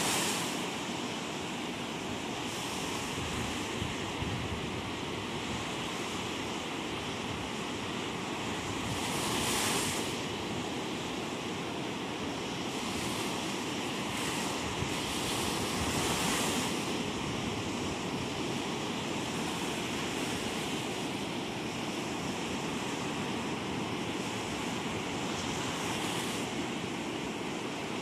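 Ocean surf breaking and washing in, with wind on the microphone; the rush of the waves swells louder three times.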